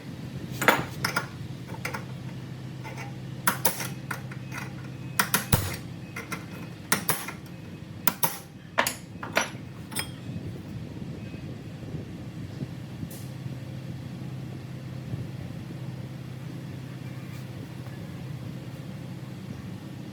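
Sharp metal clanks and taps, about a dozen of them in the first ten seconds, as tools work on steel exhaust parts, over a steady low hum.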